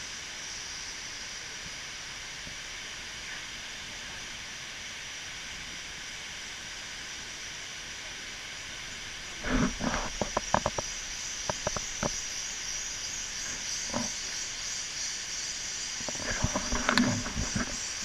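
Waterfall rushing as a steady hiss. Clusters of louder thumps and crackles break in about halfway through and again near the end.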